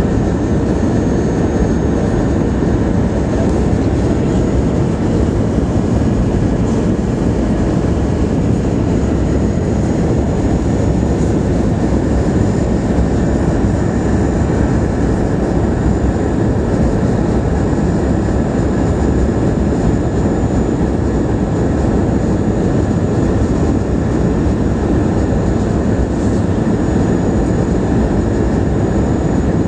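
Steady roar of an airliner cabin during the landing approach: engine noise and rushing air heard from a window seat, with faint high whines above it.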